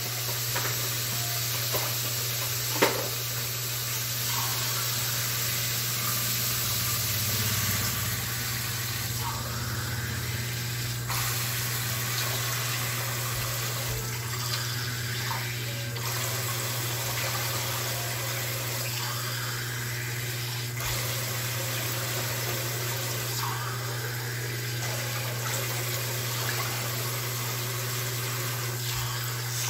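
Water pouring steadily into a large aluminium cooking pot of browned pork pieces, filling it to boil the meat. A steady low hum runs underneath, and there is one sharp knock about three seconds in.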